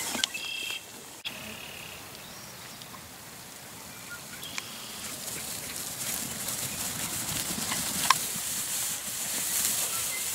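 Young lambs romping over pasture grass and hay, with rustling and light hoof sounds that grow louder in the second half. A couple of short, high calls sound in the first two seconds.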